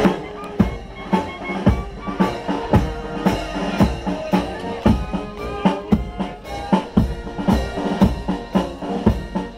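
Marching music: a drum strikes a steady beat nearly twice a second under held band notes.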